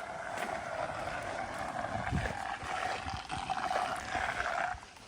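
Floodwater rushing steadily, with some low rumbles, breaking off suddenly near the end.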